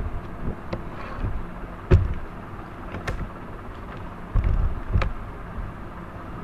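Irregular knocks and clicks over a low background rumble. The loudest thump comes about two seconds in, and another heavy one a little past four seconds.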